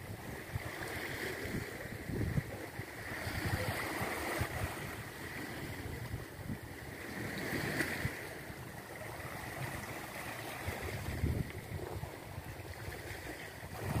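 Gentle waves washing in and breaking over black volcanic shore rocks, the wash swelling and easing every few seconds. Wind buffets the microphone with a gusty low rumble.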